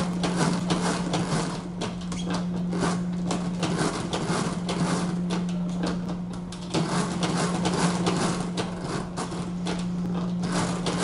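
A 1941 Friden H8 mechanical calculator running through a calculation on its own: a steady motor hum under a rapid, continuous clatter from the mechanism as it cycles and the carriage steps along. The clatter eases briefly about seven seconds in, then picks up again.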